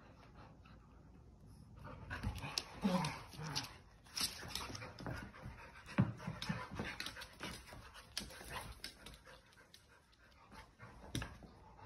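An adult Labrador and a Labrador puppy playing: panting and scuffling, with many quick clicks and taps of paws and claws on a hardwood floor. Brief dog vocal sounds come about three seconds in and again about six seconds in.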